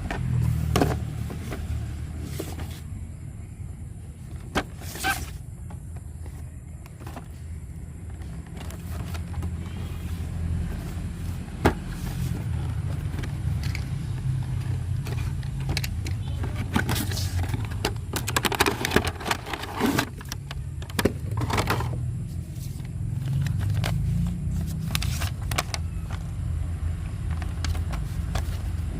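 Small electric motor of a toy remote-control car running with a steady low whir, broken by scattered clicks and knocks.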